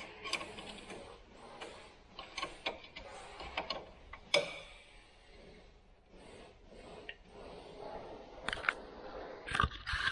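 Hand tools and metal parts clicking, tapping and scraping at a car's front brake as it is worked on, in an irregular string of small sounds with a sharper click about four seconds in. A cluster of knocks and a heavier thump come near the end.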